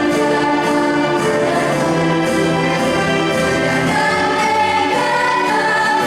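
Junior high school choir singing in harmony, several voices holding long notes together.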